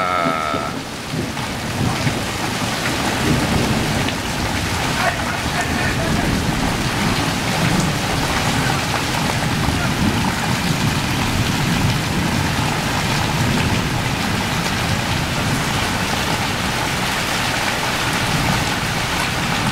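Steady downpour of rain in a thunderstorm, falling on the yard, fence and street.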